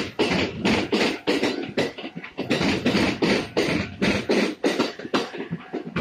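Kintetsu electric train's wheels clattering over the rail joints and level-crossing rails as it passes close by, a fast, uneven run of sharp knocks several times a second.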